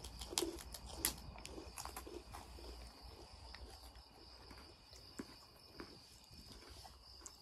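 Quiet scattered clicks and crinkles of people snacking: crackers being handled and bitten and plastic snack bags rustling, busiest in the first two seconds, over a faint steady high-pitched tone.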